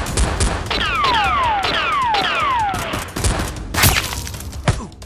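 Rapid gunfire sound effects, a fast run of sharp shots, overlaid with about five falling whines between about one and three seconds in, and one louder crack near the end.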